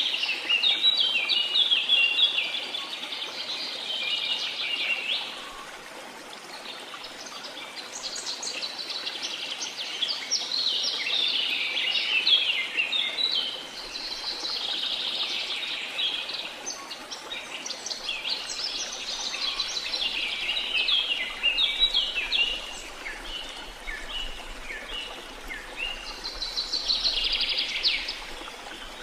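Birds singing in fast chirping phrases, in bouts of a few seconds with short gaps, over a steady rush of falling water.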